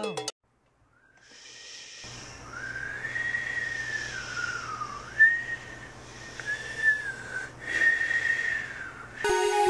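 A high whistling tone that glides slowly up and down with short breaks, over a steady hiss. It fades in about a second in, and chiming music takes over just before the end.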